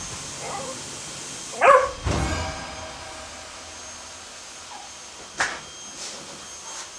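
A cockapoo barks once, loud and short, about a second and a half in, with a low thud just after. A sharp click comes later.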